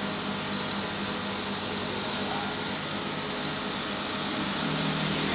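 CO2 laser cutter running with a steady whirring hiss as its gantry drives the head across the bed during a test run to check the Y-axis travel.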